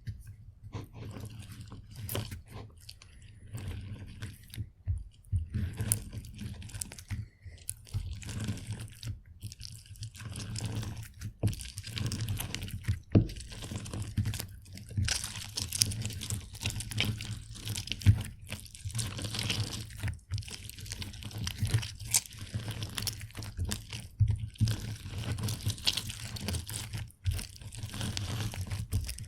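Orange being squeezed on a juicer: irregular wet crunching and crackling of peel and pulp, with many sharp clicks, sparse at first and getting denser and louder after about ten seconds.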